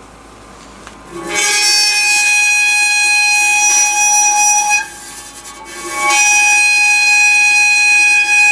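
A steady, buzzy high-pitched test tone played through the cymatics rig's speaker, sounding twice: for about three and a half seconds from about a second in, then again after a short gap from about six seconds in.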